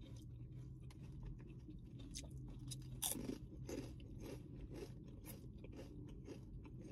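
Chips being crunched and chewed with the mouth closed: a quiet run of crisp crackles, a little louder about three seconds in.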